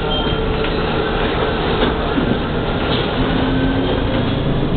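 Cabin noise inside an Ansaldo-Mauri trolleybus under way: steady road and body noise with the electric drive's hum, which comes through more plainly after about three seconds, and a couple of faint knocks.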